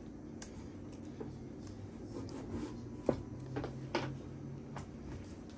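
Faint handling noise: a few light clicks and knocks over a faint low hum, the strongest about three and four seconds in.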